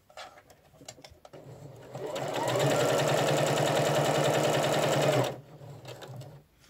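Domestic sewing machine stitching a twin-needle seam in jersey: the motor starts slowly, speeds up about two seconds in to a steady run, and stops a little after five seconds in. A few small handling clicks come before it.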